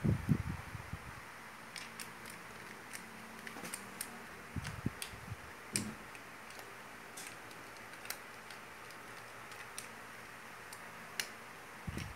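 Scattered light clicks and ticks of a screwdriver working a screw in an electric drill's chuck and gear head, with a few dull thumps of parts being handled, the loudest right at the start, about five seconds in and at the end.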